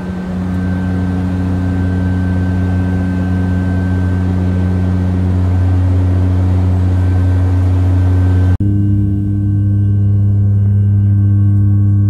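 Turboprop aircraft in flight heard from inside: a loud, steady propeller and engine drone with rushing air. About two-thirds of the way through the sound dips for an instant and the drone settles to a slightly different pitch.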